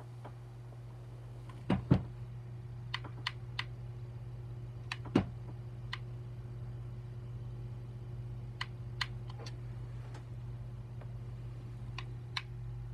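Scattered light clicks and taps, with a couple of louder knocks about two seconds in and one about five seconds in, over a steady low hum.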